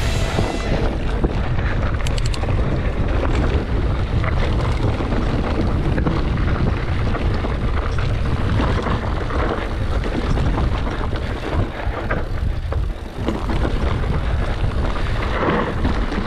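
Wind buffeting the microphone over the rattle and clatter of a mountain bike rolling down a rocky dirt trail, with scattered knocks as the tyres hit stones.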